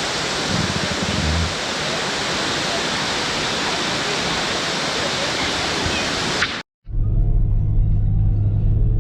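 Waterfall roar, a loud, steady rush of falling water. It cuts off suddenly near the end and gives way to a steady low vehicle engine drone.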